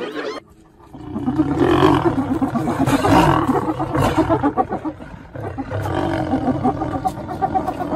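Lions growling, starting about a second in after a brief drop, deep and rough and rising and falling in waves.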